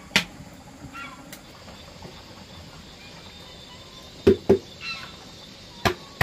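Sharp knocks and taps against a large metal cooking pot as pig bran is stirred with a wooden paddle and tipped in from a plastic bucket: one just after the start, two in quick succession about four seconds in, and more near the end. Faint clucking of chickens between the knocks.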